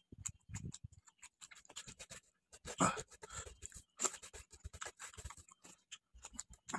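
Eating by hand from a plate, played fast-forward: fingers scraping rice and gravy across the plate, with lip-smacking and chewing. It comes as a quick, irregular run of small clicks and smacks, with a couple of louder ones in the middle.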